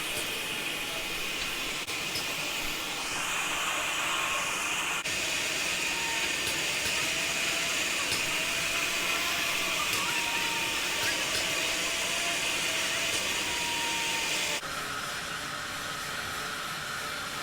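Steady hissing whine of factory machinery running, with faint wavering tones underneath. The sound changes abruptly about fourteen and a half seconds in.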